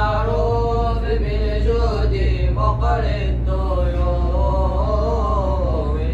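Background music: a chanted vocal line in long, slowly wavering held notes over a steady low hum.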